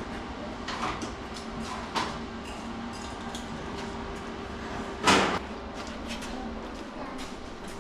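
Clicks and knocks of steel car-body panels being handled and test-fitted, with one louder clunk about five seconds in, over a steady hum.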